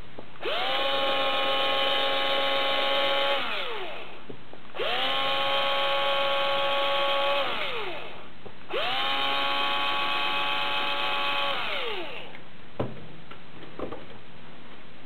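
Power drill with a very small bit run three times for about three seconds each, its whine rising as it spins up and falling as it winds down each time. It is boring shallow anchor indents into a plastic camera body.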